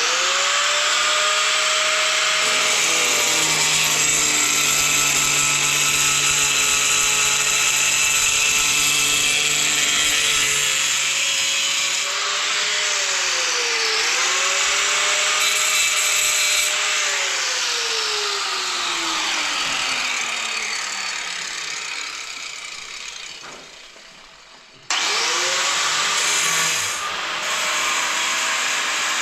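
A handheld electric power tool running at full speed, with a high whine over a hiss. Its speed dips briefly about halfway through, then it winds down slowly with a falling whine, and it is switched on again a few seconds before the end.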